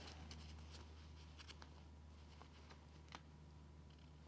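Near silence: faint, scattered rustles and small ticks of a viscose-and-wool blazer being handled and searched for its inside tag, over a low steady hum.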